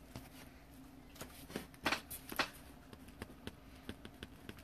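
Faint clicks and taps of hands handling trading cards on a tabletop, with a few sharper clicks about two seconds in.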